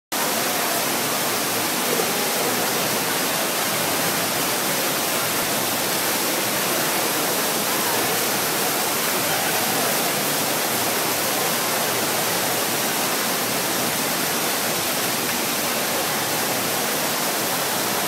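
Water pouring down a large man-made indoor waterfall over an artificial rock wall: a steady, even rush of falling water.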